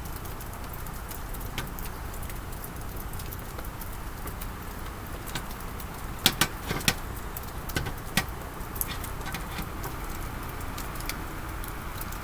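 Hot steel piece held in a bucket of quench oil, with a handful of sharp metallic clicks and knocks about six to nine seconds in over a steady low rumble.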